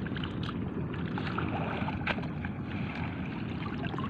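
Shallow seawater sloshing and swishing as a push net is worked through it, with a few small splashes over a steady wind rumble on the microphone.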